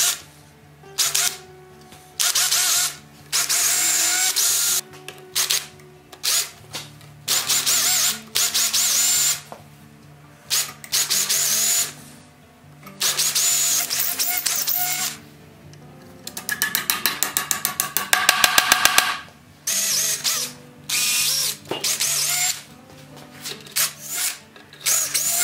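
Makita cordless drill run in about ten short bursts of high-pitched whine, each stopping and starting again, drilling at a metal plate on a wooden sled runner. About two-thirds of the way in comes a fast, even clicking rattle.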